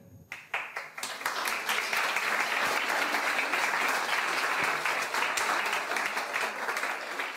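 Audience applauding. The clapping builds over the first second and then holds steady.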